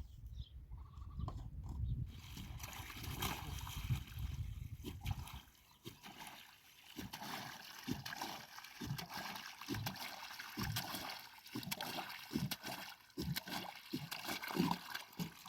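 Water splashing and trickling in irregular splashes, with a low rumble during the first few seconds.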